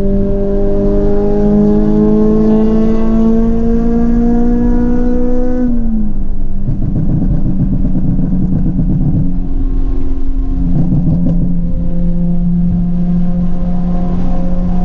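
Honda Civic Type R EP3's 2.0-litre i-VTEC four-cylinder pulling hard through a gear, its note rising steadily for about six seconds. The revs then fall away sharply as the throttle is lifted, followed by a few seconds of crackling pops from the exhaust on the overrun. It settles into a steady engine note near the end.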